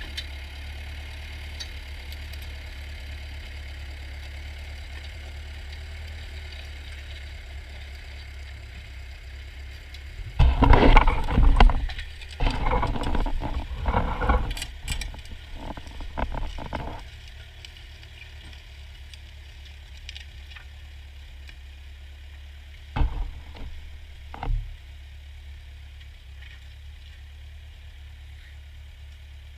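Ford farm tractor engine idling with a steady low hum. About ten seconds in come several seconds of loud, irregular clattering and knocking, then two single knocks a little later.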